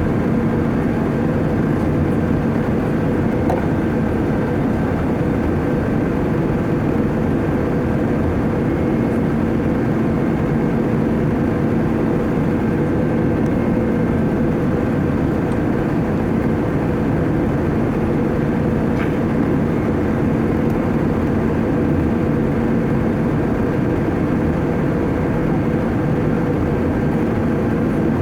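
Airbus A320 jet engines and rushing air in a steady, unchanging drone with a constant hum running through it, typical of the climb after takeoff.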